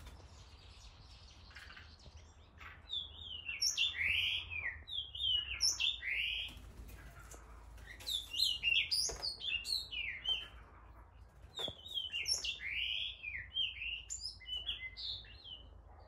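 Cape rock thrush singing: three runs of varied, sliding whistled notes with short pauses between them.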